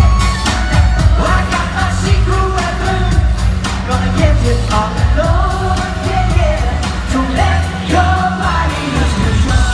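Live pop music: a male lead vocal over a track with heavy bass and a steady beat, played loud over a concert PA and heard from the audience.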